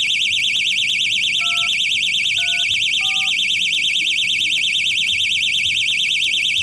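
Marine Magellan boat security system's alarm siren sounding loud and steady with a fast, high-pitched warble. Three short phone keypad touch-tones come between about one and a half and three seconds in, keying in the access code to disarm it.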